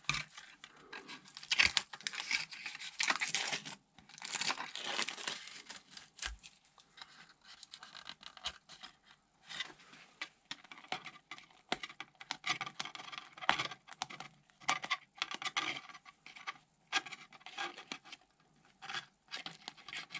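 Thin protective plastic film being peeled off a painted polycarbonate (Lexan) RC car body, making irregular crackling and tearing sounds with crinkling of the stripped film, in uneven bursts with brief pauses.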